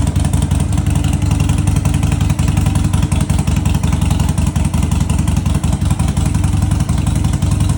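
Harley-Davidson Sportster 1200's air-cooled V-twin engine running steadily with a loud, low, pulsing rumble.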